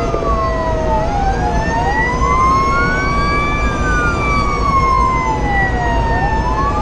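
Fire engine siren on wail, two tones rising and falling slowly out of step with each other, heard from inside the cab over steady engine and road rumble while the truck runs to a call.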